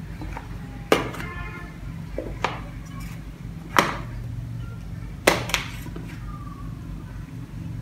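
Metal spoon stirring fruit chaat in a plastic storage box, knocking against the box about five times with sharp clicks; the first knock, about a second in, rings briefly.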